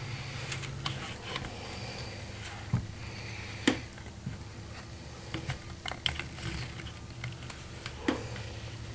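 Adjustable wrench clicking and knocking on a fitting at the base of a two-stroke chainsaw's cylinder as it is turned: scattered small metallic clicks, with sharper knocks about three and four seconds in and again near the end, over a low steady hum.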